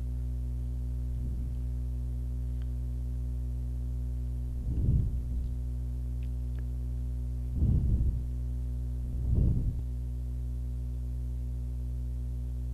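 Steady electrical hum with a low buzz, broken by three short low thumps: one near the middle and two close together later on.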